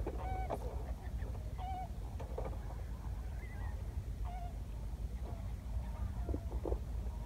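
Scattered short cries of birds, several brief calls spread through, over a steady low rumble of wind on the microphone.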